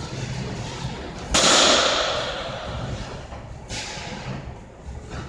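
Batting-cage sounds: a sharp, loud crack of a baseball being pitched or struck, about a second and a half in, trailing off over about a second. A second, softer crack comes near four seconds.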